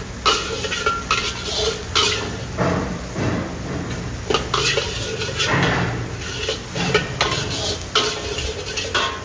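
A steel spatula scraping and knocking against a steel wok in quick, irregular strokes as scrambled egg and chopped vegetables are stir-fried, with frying sizzle underneath.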